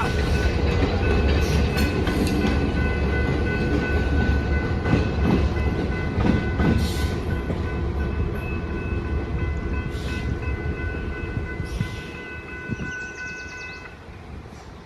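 A passing train: a low rumble with wheel noise and several steady whining tones, fading as the train moves away. The rumble drops out about twelve seconds in and the tones stop shortly after.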